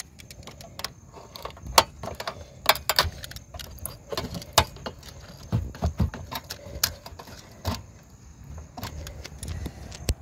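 Irregular clicks, taps and light metallic clinks of hand work on an RV rooftop air conditioner: a utility knife and the unit's sheet-metal control box cover being handled, with a few dull knocks about five to six seconds in.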